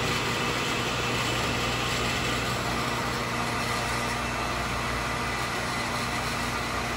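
Accuturn 8922 brake lathe running, spinning a brake rotor on its arbor with a steady, even motor hum.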